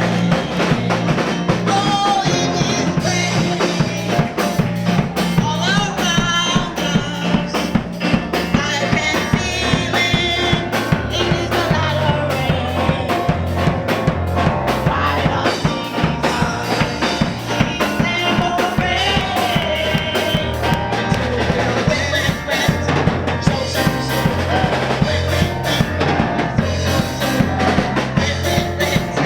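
Live church band playing an upbeat gospel number, with a driving drum kit and a stepping bass line under wavering melody lines.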